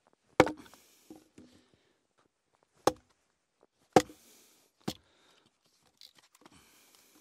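Hatchet splitting firewood into kindling on a wooden chopping block: four sharp chops, the loudest about half a second in and at four seconds, followed near the end by a few light knocks of split sticks.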